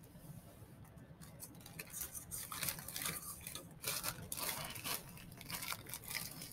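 A plastic zip-top bag rustling and crinkling as potting soil is scooped out of it by hand and dropped into a paper cup, with crumbly patter of the soil. The crinkling starts about a second in and gets louder and busier from about two seconds on.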